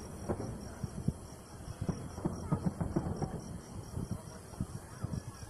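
Fireworks going off, a scatter of sharp bangs and crackles several times a second over a low rumble, in a lighter spell between heavier volleys.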